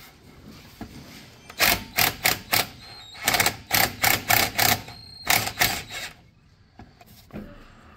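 Hand tools working on metal under a car: about a dozen sharp metallic clicks and clanks in quick, uneven groups, fading out for the last couple of seconds.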